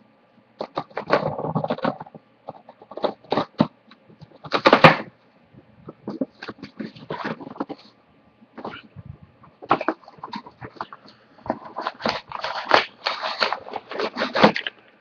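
A cardboard shipping box being slit open with a knife and unpacked: irregular scraping, crackling and rustling of cardboard and packing, loudest in a burst about five seconds in.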